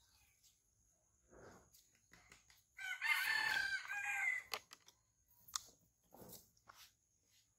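A rooster crowing once, one call of about a second and a half, with a few faint clicks and rustles after it.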